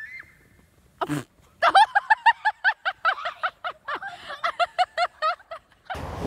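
Someone laughing hard in a rapid run of short, high-pitched "ha" bursts, about five a second, for around four seconds. A brief sharp sound comes just before, about a second in.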